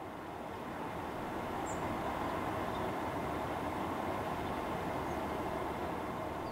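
A train passing out of sight, a steady rolling rumble that builds over the first couple of seconds and then holds.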